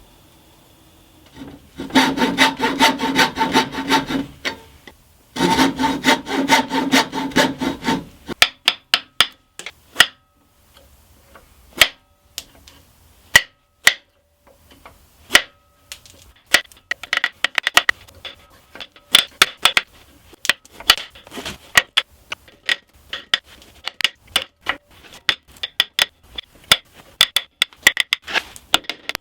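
Hand tool working by hand with quick scraping strokes. Two dense runs of rasping strokes with a slight metallic ring come first. Scattered sharp taps and knocks follow, then more runs of quick repeated strokes.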